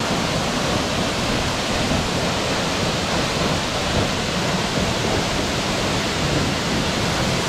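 Waterfall pouring, a loud steady rush of water.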